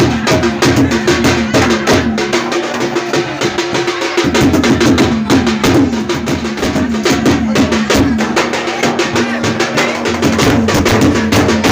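Loud wedding dance music driven by fast, dense drumming, with low drum strokes that slide down in pitch several times a second.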